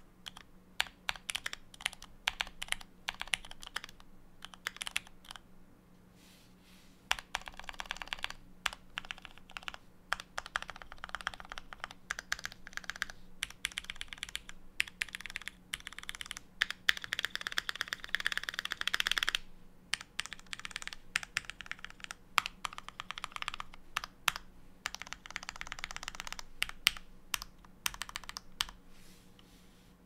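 Typing on a Keychron Q1 mechanical keyboard with an aluminium plate, tape mod and case foam removed, fitted with lubed Cherry MX Black Hyperglide linear switches and GMK keycaps: fast, irregular keystroke clacks with a short pause about six seconds in.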